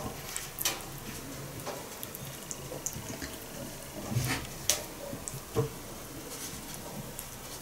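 Raw chicken drumsticks being rubbed by hand in a ceramic bowl of dry curry spice mix: soft squishing and handling with a few sharp clicks of the drumstick against the bowl.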